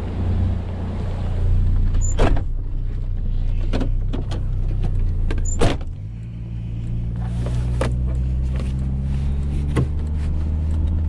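Pickup truck engine running with a steady low hum, with two sharp knocks about two and five and a half seconds in. About six seconds in the engine note changes and settles into a new steady pitch, as when the truck pulls away.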